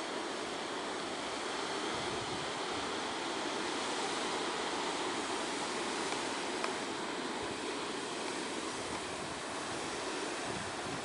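Sea surf breaking over shore rocks: a steady rushing wash.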